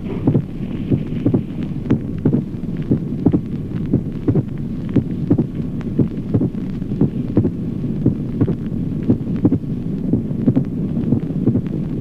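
Heart sounds heard on auscultation with a pericardial knock: each beat's second heart sound is followed at once by an extra, clear-sounding beat, repeating steadily over a low hum. A pericardial knock is the classic sign of constrictive pericarditis.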